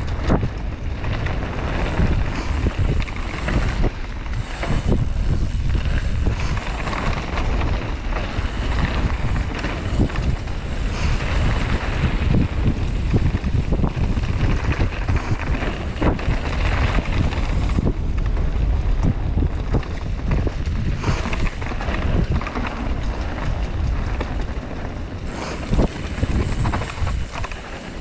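Wind rushing over the microphone of a camera moving at mountain-bike speed, mixed with tyres rolling on a dirt trail and a few sharp knocks from bumps.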